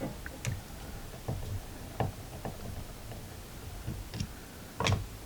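Scattered light clicks and taps of a screwdriver working the float bowl screws out of an outboard carburetor, at uneven gaps of about half a second to a second, with a louder knock near the end.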